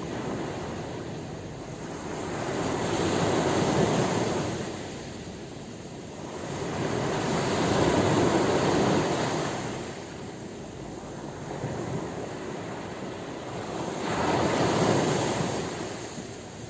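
Ocean surf: a rushing noise of waves that swells and fades three times, each wave building and falling away over a few seconds.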